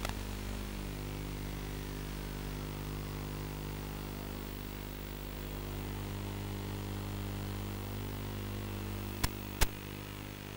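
Steady electrical hum with a layer of hiss, the static of an FPV video link's audio channel. Two sharp clicks a little past nine seconds in.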